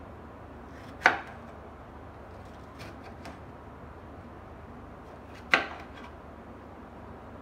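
Kitchen knife cutting through a green bell pepper and striking a bamboo cutting board: two sharp knocks about four and a half seconds apart, with a couple of faint taps between them.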